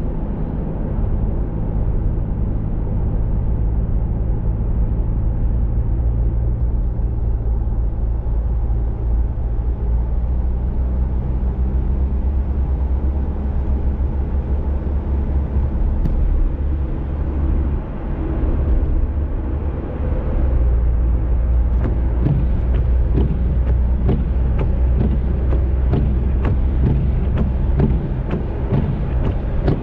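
Car engine and road noise, a steady low rumble, with scattered sharp ticks joining about two-thirds of the way through.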